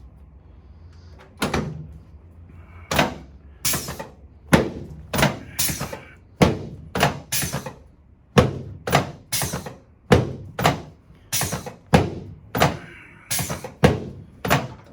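A rapid series of sharp thumps, about twenty of them starting a second and a half in, spaced roughly half a second to a second apart: a chiropractor's quick, high-velocity, low-amplitude hand thrusts landing on the patient's spine on the adjusting table.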